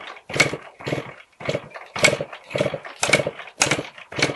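Honda MB5's 63cc big-bore two-stroke engine running unevenly, firing in short regular bursts about twice a second instead of holding a steady idle. The owner guesses this is too rich a mixture from the 108 main jet.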